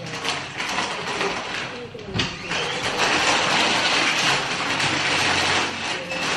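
Plastic snack bag crinkling and rustling as it is handled and rummaged in, with a dull knock about two seconds in.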